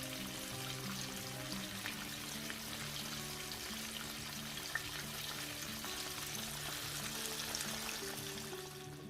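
Flour-coated chicken pieces frying in oil, a steady sizzle with small crackles, under soft background music. The sizzle stops just at the end.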